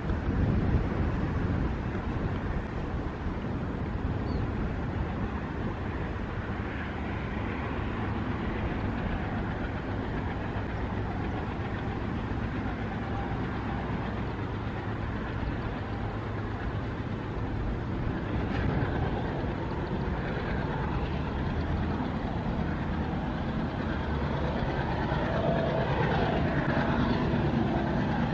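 Twin WDM3A diesel-electric locomotives with ALCO 16-cylinder engines working under power as they haul an express train, a steady engine rumble that grows louder toward the end as the train approaches.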